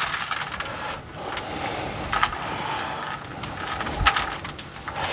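Small root rake scratching and combing through a yew's root ball, loosening old soil from the fine roots: a run of dry, crackly scrapes with a few sharper strokes and soil crumbling away.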